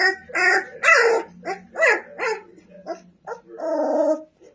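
Young English Mastiff puppy yapping: a quick run of short, high barks about two a second, then one longer, rougher bark near the end.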